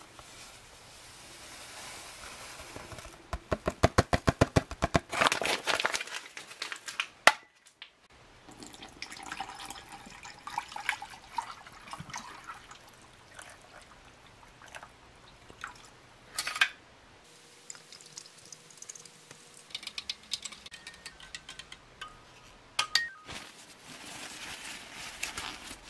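Powdered sports drink mix tipped into a drinking glass, water poured in, then the drink stirred with a plastic spoon, with quick clicks against the glass.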